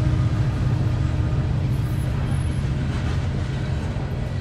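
Diesel freight train passing: a steady low rumble of locomotive engines and rolling coal hopper cars, with a faint steady tone that drops out about two and a half seconds in.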